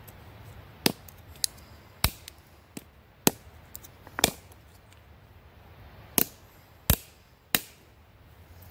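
DeWalt 20 oz camper's axe chopping small split sticks of wood: about nine sharp knocks, irregularly spaced, with a pause of a couple of seconds in the middle.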